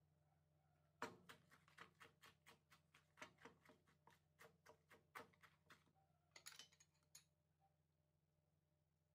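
Wooden pestle pounding papaya salad in a wooden mortar, with a spatula turning the mix: about twenty quick, light knocks, roughly four a second, that stop after about five seconds. A brief rustle follows.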